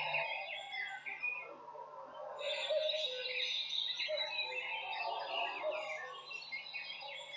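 Many overlapping bird chirps and short twittering calls over a steady low hum.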